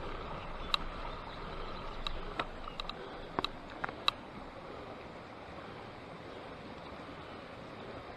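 A mountain bike with a trailer being ridden up a steep climb: a steady rushing noise, with a scatter of sharp clicks and ticks in the first half.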